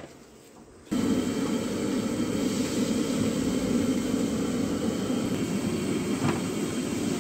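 Gas burner under a large aluminium biryani pot starts with a steady roar about a second in, heating the lidded pot for dum cooking. A light knock comes about six seconds in as a brick is set on the lid.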